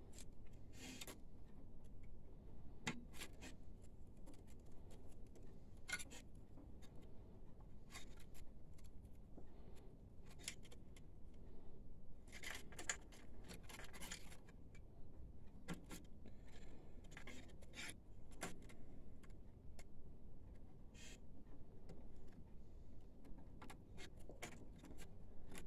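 Faint, irregular small clicks and rubbing of hands handling flat ribbon cables and plastic printer parts while fitting the cables back into their connectors, with a busier run of clicks about halfway through.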